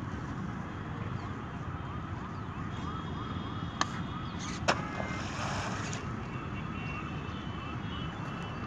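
Steady outdoor rumble with a faint wail repeating several times a second. About four and a half seconds in comes a sharp crack and then a second of splashy hiss, as a thrown plastic bag of rubbish lands in the river.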